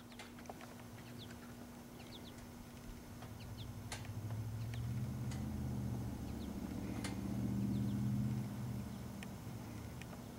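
Faint bird chirps and a few light clicks over a low rumble that builds for a few seconds, is loudest about eight seconds in, then fades.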